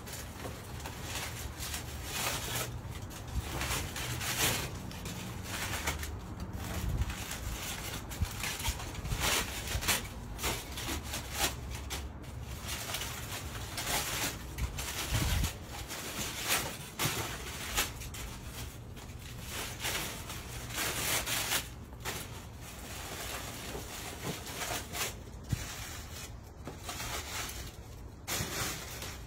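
Aluminium foil being unwrapped and crumpled by hand: an irregular run of crinkles and crackles.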